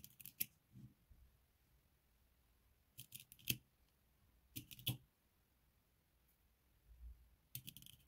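Small magnetic balls clicking as they snap onto one another, in four short bursts of several sharp clicks each.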